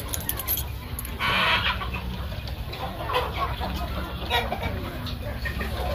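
Flock of free-range chickens clucking as they feed, over a steady low rumble, with one louder, harsher burst about a second in.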